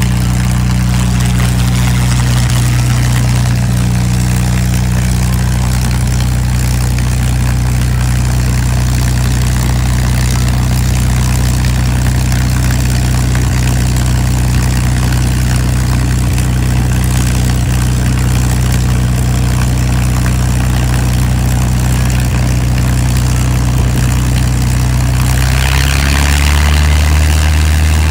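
A piston engine running steadily at low speed. Near the end its note changes and it gets a little louder.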